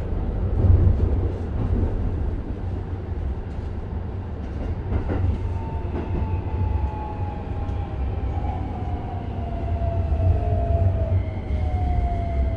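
Running noise inside a Keikyu 1000 series car with Toyo hybrid SiC-VVVF traction control: a steady low rumble of wheels on rail with a few knocks over rail joints. From about five seconds in, the traction motor whine falls steadily in pitch as the train slows under braking.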